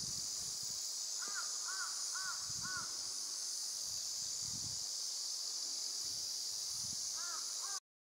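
A crow cawing: a quick run of four caws about a second in, then three more near the end, over a steady high hiss.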